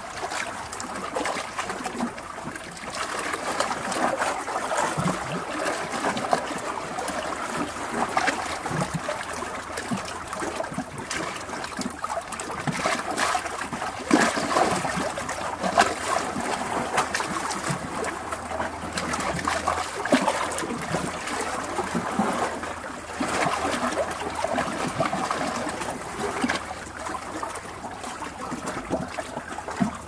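Sea waves washing against rocks: continuous churning, splashing water with many short sharp splashes, swelling and easing every few seconds, loudest around the middle.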